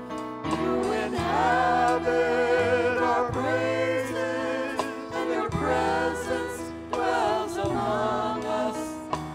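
A congregation singing together with instrumental accompaniment, a bass line moving under the voices.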